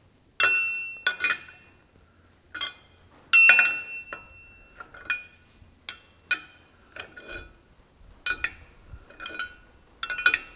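A steel bar levered against the wheel studs of a tractor's front hub, turning the hub round: a series of irregular metallic clinks and knocks, some ringing on for a moment, the loudest about half a second in and again a little after three seconds. The hub is being turned to let the tapered roller bearings seat before the nuts are torqued.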